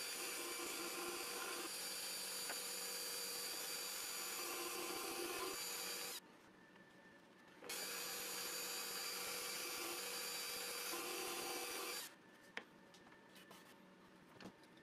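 Drill press with a thin bit running and drilling through a stack of plywood pieces, in two runs of about six and about four and a half seconds; the motor stops suddenly in between and at the end. A few light clicks follow.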